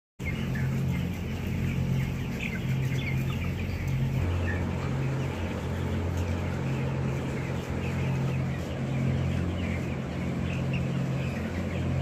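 A large flock of broiler chickens clucking and chirping, many short scattered calls over a steady low hum.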